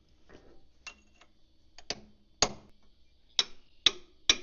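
Hammer blows on steel parts of a Caterpillar D4D bulldozer, knocking at a stuck piece to work it loose. A few scattered strikes with a faint metallic ring, a hard one about halfway, then a quicker run of blows about two a second near the end.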